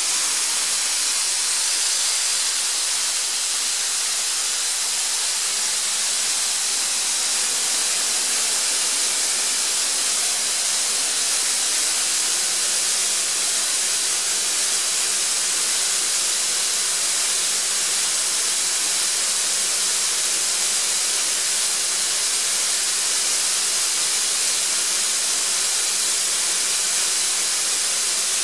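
Atlas Copco ZR200 two-stage oil-free rotary screw air compressor running loaded at about 7 bar, a steady, unbroken high hiss.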